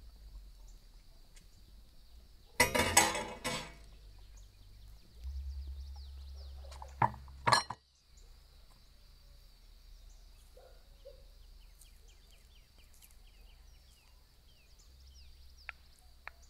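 Cookware clinking: a short ringing clatter about two and a half seconds in, then two sharp clicks about seven seconds in.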